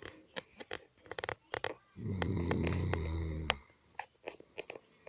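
A man snoring: one low snore about two seconds in, lasting about a second and a half. Short, sharp clicks come before and after it.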